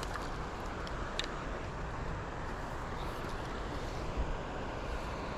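Steady rushing of a river's current, an even noise with no gusts or pauses. A faint click about a second in.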